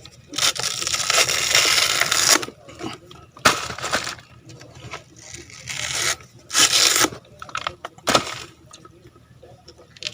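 Fibrous husk of a young coconut being torn and scraped open in irregular bursts of rasping and ripping, with a few sharp knocks.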